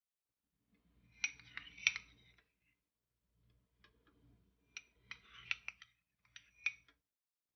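A metal spoon clicking and scraping against a non-stick frying pan as a lump of ghee is pushed around to melt. The light clicks come in two bunches with a short pause between them.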